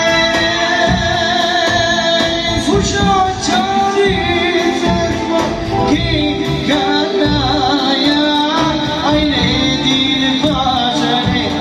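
Music: a song with a voice singing over instrumental backing and percussion.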